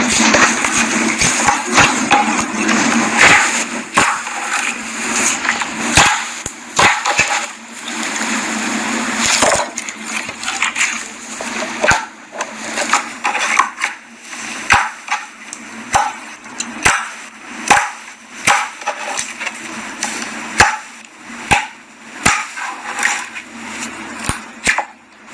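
Clear slime squished and stretched by hand, giving sticky crackles and many irregular sharp clicks.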